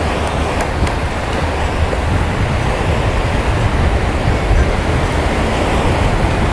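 Ocean surf washing onto a sand beach, a steady loud rush, with wind rumbling on the microphone.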